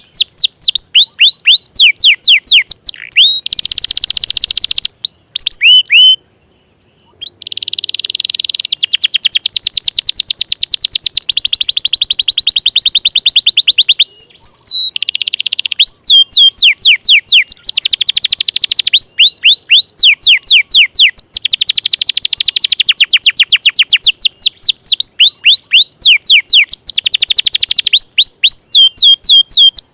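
Domestic canary singing a long, loud song of fast trills and rapidly repeated downward-sweeping whistles, breaking off briefly about six and fourteen seconds in.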